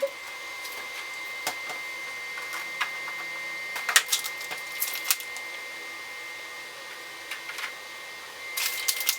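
Scattered light clicks and taps of gingerbread kit pieces being handled and fitted together, with a faint steady high-pitched whine underneath.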